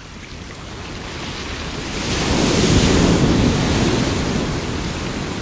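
A rushing, surf-like noise that fades in, swells to its loudest about three seconds in, then eases off.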